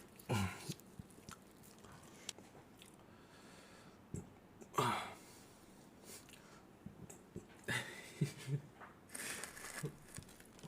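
A man burping several times: a burp about half a second in and a bigger one near five seconds, each dropping in pitch, then a few shorter burps and mouth sounds near the end.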